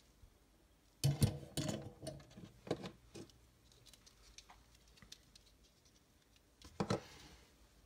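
Small tools being put down and handled on a workbench cutting mat: a soldering iron, a solder reel and a superglue tube. A cluster of knocks and clatter starts about a second in and lasts about two seconds, and a single knock comes near the end.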